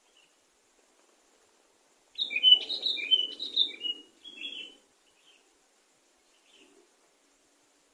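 Sooty-headed bulbul (kutilang) singing one quick, chirpy phrase of rising and falling notes, starting about two seconds in and lasting about two and a half seconds, followed by a few faint single notes near the end.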